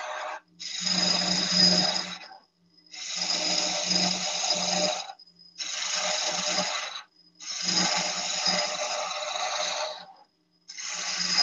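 Gouge cutting a thin spindle on a wood lathe in five passes with short breaks, the lathe humming underneath. The thin middle of the workpiece flexes and resonates under the tool, the chatter that leaves spiral marks.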